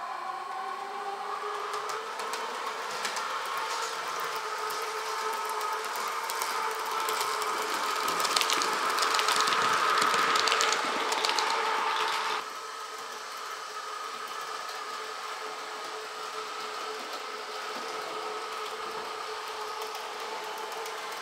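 H0-scale model S-Bahn class 420 train running on the layout track: a steady motor whine with clicking from the wheels over the rails. It grows louder as the train passes close by and drops off suddenly about twelve seconds in, then runs on more quietly.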